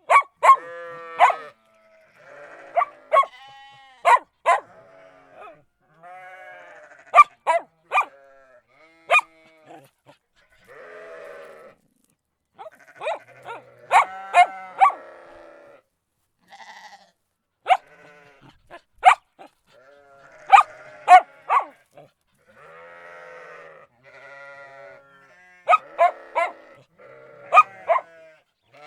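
A dog barking in quick runs of two to four loud barks, with sheep bleating in quieter, wavering calls of about a second each between the barks.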